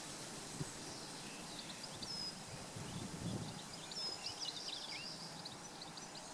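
Woodland birds singing, many short high chirps and trills, over a steady background hiss. A soft low rumble about halfway through.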